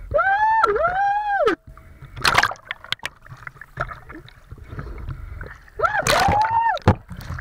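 High-pitched voice calling out: two rising-and-falling cries near the start and a third about six seconds in, with short splashes of water in between.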